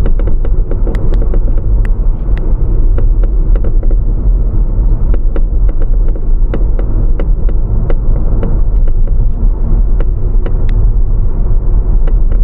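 Road and tyre rumble of a moving 2019 Audi A4L picked up at the left rear frame rail, with irregular sharp clicks and knocks several times a second. This is the left-rear "咯噔咯噔" clunk being chased, first suspected as a loose bolt at the rear subframe's left-rear mount, which tightening did not cure.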